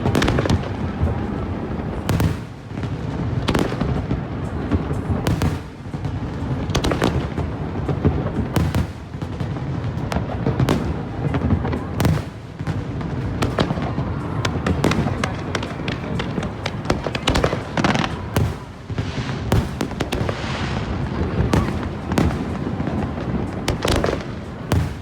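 Fireworks display: a rapid, unbroken run of bangs and crackles, several a second, over a constant low rumble.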